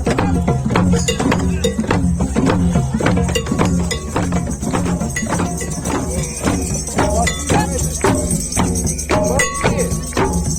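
Music with a quick, busy percussion beat over a steady low bass line.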